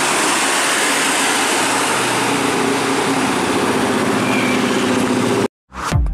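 Mitsubishi Canter light truck's diesel engine and tyres as it drives past with other traffic, a steady engine note coming through about halfway. About five and a half seconds in, the traffic sound cuts off and electronic dance music with a heavy kick drum starts.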